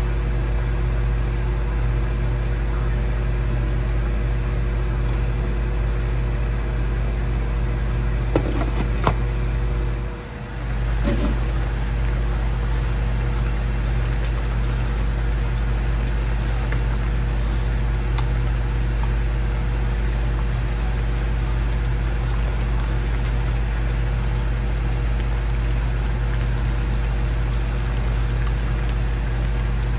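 Steady droning hum of a motor-driven kitchen fan, with a deep low drone and a few even tones, dipping briefly about ten seconds in; a couple of light clicks of the ladle on the pan come just before the dip.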